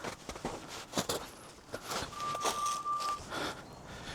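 Footsteps of a hiker on a snowy mountain trail, a run of irregular steps. About halfway through, a steady high tone is held for about a second.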